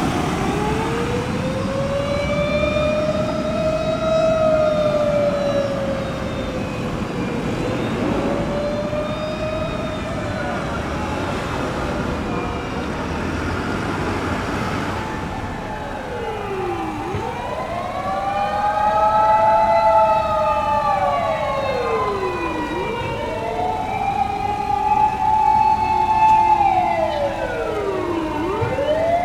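Fire engine sirens wailing over road noise, the pitch slowly rising and falling. In the second half several wails overlap, each dropping sharply and climbing again about every five or six seconds.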